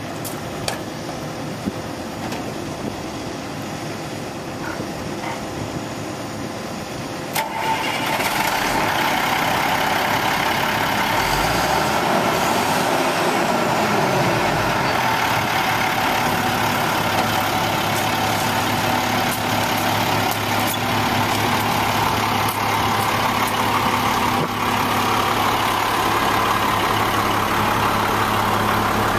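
Two knocks from the truck's cab door. About seven seconds in, the 2001 International digger truck's diesel engine cranks and catches quickly. Its speed rises and falls for a few seconds, then it settles into a steady idle.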